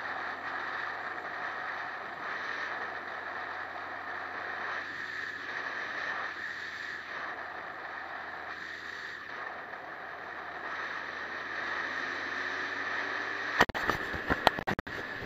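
Motorcycle riding noise: a steady rush of wind and road noise with the engine running underneath, muffled as if through a camera housing. Near the end, a quick burst of loud knocks and clicks as the camera and its mount are shifted.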